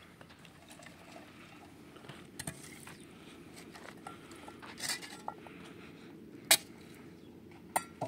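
A few scattered sharp knocks and clicks over a steady low background noise, the loudest about six and a half seconds in.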